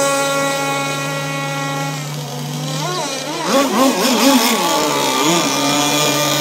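QD Pioneer 26 gasoline engine in a Rampage2 RC speedboat running at high speed, a steady high-pitched buzz that slowly sinks in pitch as the boat passes. About halfway through it weakens under a wavering sound for a few seconds, then comes back steady.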